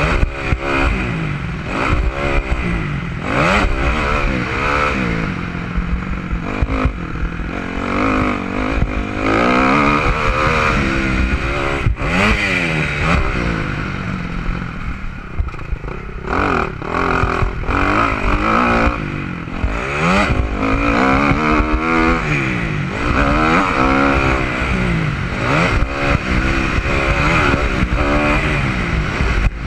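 Dirt bike engine revving hard and dropping back again and again as it is ridden through the gears around a motocross track, heard from a helmet-mounted camera, with scattered knocks and rattles from the bike over the bumps.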